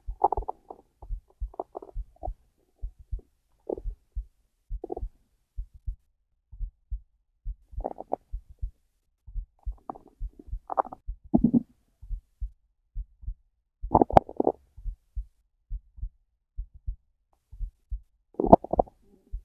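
Hungry stomach growling and gurgling in short, irregular bursts every few seconds, over a steady low heartbeat. The loudest gurgle, about two-thirds of the way in, comes with a sharp click.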